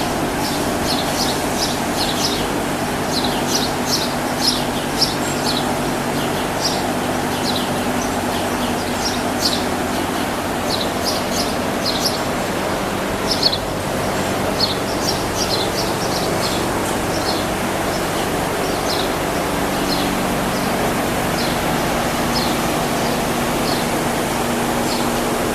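Many short chirps from small birds inside a dairy barn, coming thick and fast and thinning out after about two-thirds of the way through, over a steady machine hum and noise.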